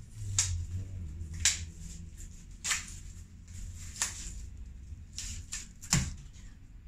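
Plastic-wrapped prepaid SIM card packs handled and set down on a desk: sharp clicks and taps about once a second, the loudest about six seconds in, over a low steady hum.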